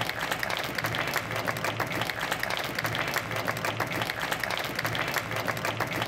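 Audience applauding: a dense, steady run of many people's hand claps.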